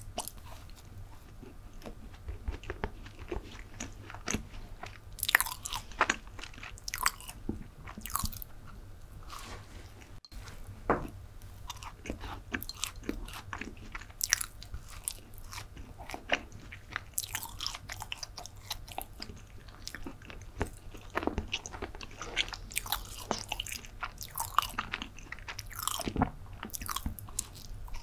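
Close-miked biting and chewing of chocolate brownie: an irregular run of soft, moist mouth clicks and smacks.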